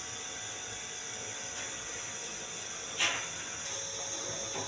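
Steady hiss of lit gas-stove burners under a tawa and a steel pot, with one sharp clink of a metal utensil against the cookware about three seconds in.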